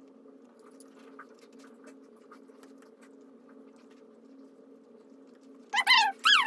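Faint small clicks of a dog licking and nibbling treats from a hand, then near the end two short, high-pitched dog whines, each rising and falling quickly.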